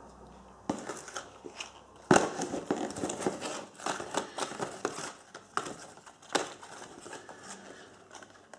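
A hand rummaging through a cardboard box of packaged fireworks: rustling and crinkling of the small boxes and packaging as they are shifted about, with the loudest knock about two seconds in.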